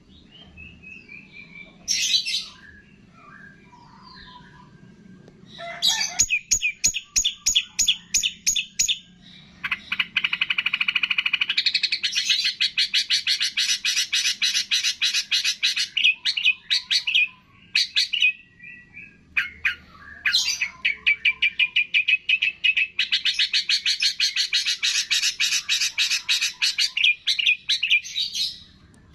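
Songbird singing: a few scattered chirps, then two long runs of fast, rapidly repeated notes, each lasting several seconds, with a short break between them.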